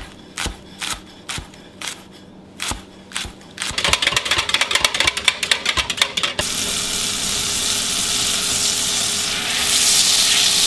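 Chef's knife chopping green onions on a wooden cutting board, about two chops a second. Then a whisk clicking fast against the sides of a measuring cup. From about six seconds in, butter sizzling in a cast-iron skillet, a steady hiss that grows louder near the end.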